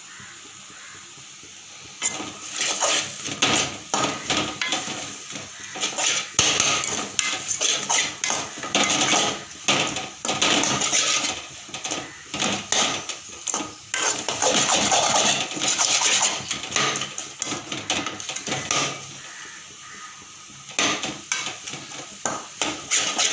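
Metal spoon stirring leafy greens in a metal cooking pot, scraping and clinking against the pot's bottom and sides in quick, irregular strokes. It starts about two seconds in and pauses briefly near the end.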